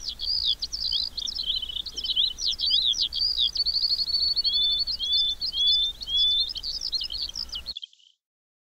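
Several small songbirds chirping and singing in trees: a dense mix of quick chirps, a fast trill, and a few rising whistles. The birdsong cuts off suddenly near the end.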